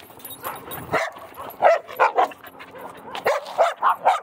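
A dog barking and yipping in a rapid, irregular series of short, loud bursts.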